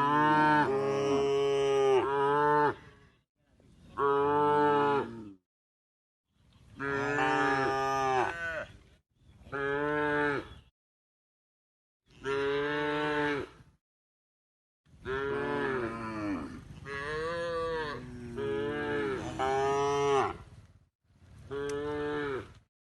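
Cow mooing over and over: about eight drawn-out calls of one to three seconds each, with dead silence between them.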